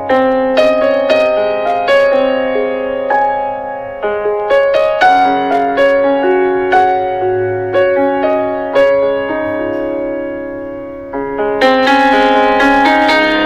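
Background piano music: a slow melody of single struck notes and chords, each ringing and fading.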